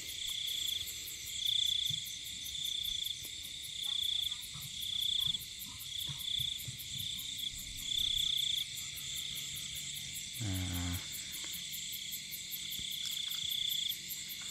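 Night insect chorus of crickets: a high trill that comes and goes in pulses of about half a second to a second, over a steady fine high chirring. One short low voiced sound about ten and a half seconds in.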